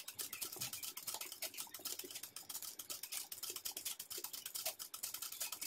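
Ordinary domestic sewing machine stitching satin-stitch embroidery in a frame: a quick, even run of ticking from the needle and mechanism, several stitches a second.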